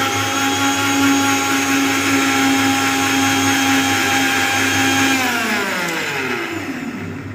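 Sujata mixer grinder motor running steadily with a high whine as it purées cooked cauliflower. About five seconds in it is switched off and winds down, its pitch falling away.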